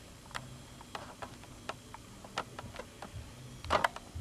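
Irregular light clicks and taps, a few a second, with a louder burst of clatter near the end.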